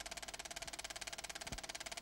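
A steady, fast mechanical rattle of about two dozen ticks a second over a low hum and a steady tone, with one short low thump about one and a half seconds in.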